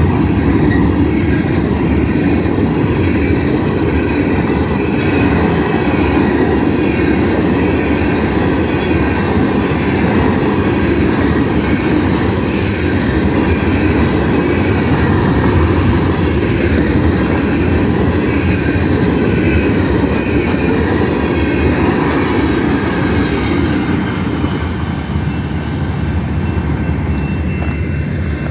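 Hopper cars of a coal train rolling past: a steady, loud noise of steel wheels on the rails. It eases off near the end as the last cars clear.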